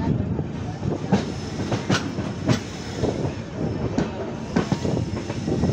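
Passenger coaches of an Indian Railways express rolling into a station: a steady rumble of wheels on rail with irregular sharp clacks, about one a second, as the wheels cross rail joints and points.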